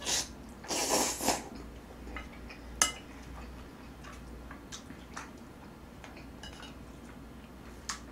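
Slurping of jjajang noodles from a bowl in the first second and a half, then a sharp clink of a utensil against a dish just under three seconds in. Lighter clicks follow as metal tongs lift cabbage kimchi from a pan.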